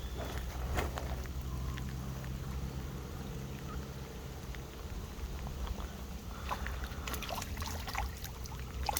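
Water splashing and trickling over a steady low rumble, with a quicker run of small splashes and clicks in the last few seconds.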